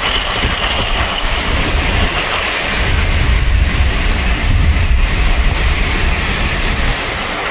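Strong hurricane wind rushing around a moving car, heard from inside the cabin, with an uneven deep rumble under a steady rush.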